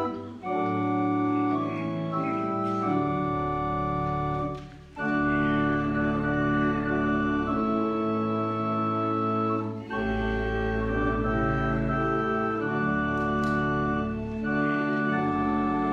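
Organ playing slow, sustained chords that change every few seconds. A deep bass note comes in about ten seconds in.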